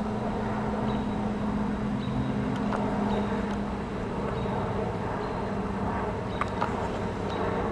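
Outdoor evening ambience: a steady low hum with short high chirps repeating roughly once a second. No thunderclap stands out.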